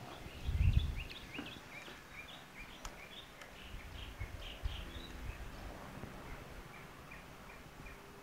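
Small birds chirping: many short, quick rising notes repeating through the clip. A brief low rumble about half a second in is louder than the birdsong.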